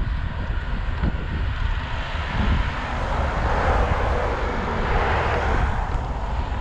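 A passing motor vehicle's noise swelling to a peak about four seconds in and then fading, over a steady low rumble of wind on the microphone of a moving bicycle.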